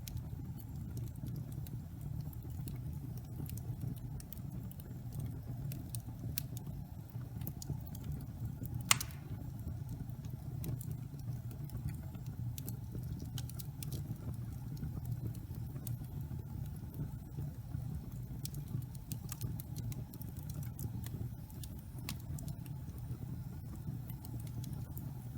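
Fire burning in a fireplace: a steady low rumble with scattered crackles and one sharp pop about nine seconds in.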